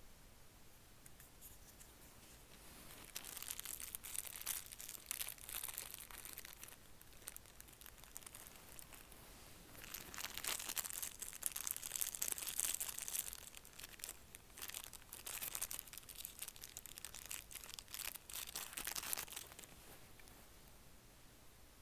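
Small plastic zip bags and card-backed enamel pins crinkling and rustling as they are handled and laid out, in three spells of a few seconds each.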